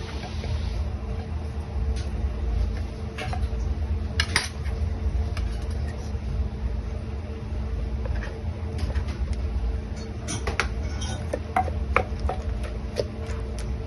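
Kitchen cooking sounds: metal utensils clinking and scraping against pots and pans in scattered sharp clinks, several close together near the end, over a steady low hum.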